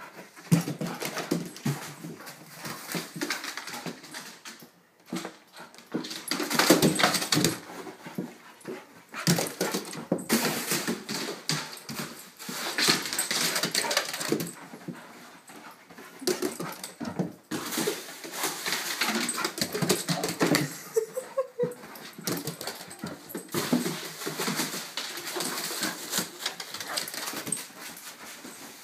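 A dog rough-playing on a bed, its vocal noises mixed with scuffling and rustling of the bedding, coming in irregular bursts with short lulls between.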